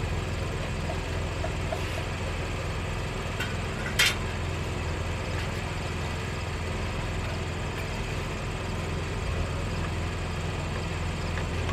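Tractor engine idling steadily with a low hum, and one sharp click about four seconds in.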